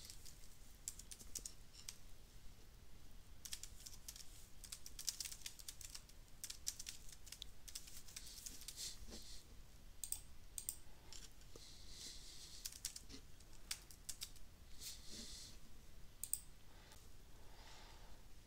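Faint computer keyboard typing mixed with mouse clicks, coming as scattered, irregular keystrokes.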